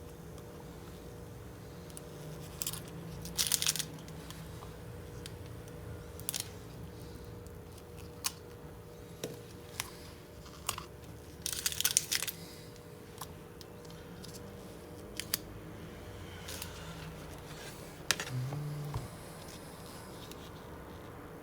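Thin polarizer film being peeled by hand off a laptop LCD panel: short crackling, tearing bursts, the loudest about three and a half seconds in and around twelve seconds in, with scattered small ticks between.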